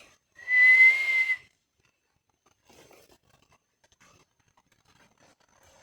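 A person whistling one loud, breathy, nearly level high note for about a second, imitating a bird's whistle to call it. After it come only faint rustles.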